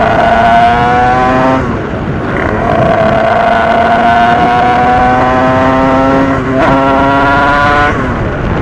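Small 88cc dirt bike engine pulling up through the gears, its pitch climbing steadily. It breaks off briefly for shifts about two seconds and six and a half seconds in, then eases off near the end. Wind rumbles on the helmet-mounted microphone underneath.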